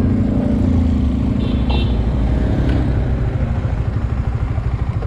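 Motorcycle engine idling with a fast, even beat, a little louder in the first second or so before settling.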